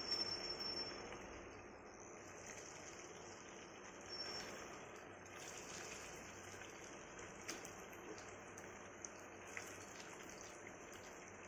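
Marinated chicken pieces frying in hot oil in a pan: a steady sizzling hiss, a little louder in the first second or so, with a few sharp pops later on.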